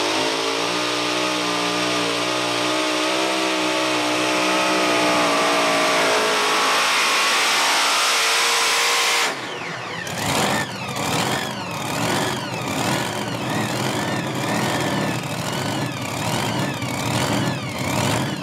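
Modified pulling tractor's twin blown (supercharged) automotive engines running hard under load against the sled. The engine note climbs slightly, then sags about six seconds in. After a sudden change about nine seconds in, the pitch and loudness waver up and down roughly once a second.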